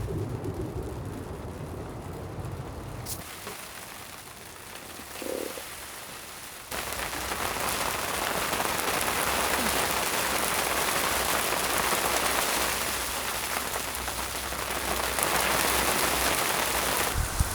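Steady hiss of rain and sleet falling, coming in suddenly about seven seconds in after a quieter stretch.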